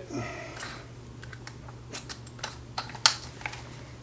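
Irregular light clicks and taps from handling a drill while its bit is changed for a slightly larger one, the sharpest click about three seconds in, over a faint steady hum.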